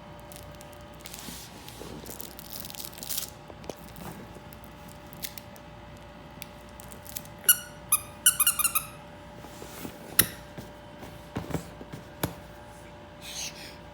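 Small handling noises, rustles and clicks, with a quick run of about eight short, high-pitched squeaks about halfway through.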